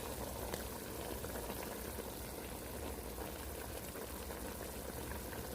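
Pot of chicken in seasoned cooking liquid bubbling steadily on the stove.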